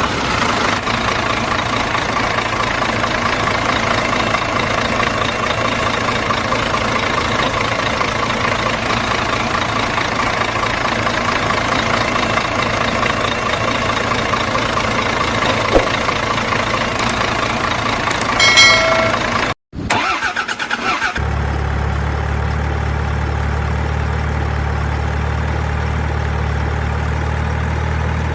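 A vehicle engine runs steadily, with a click about three-quarters of the way through and a short beep-like tone just after. It cuts off suddenly, and after a second's gap a steadier, deeper engine hum takes over.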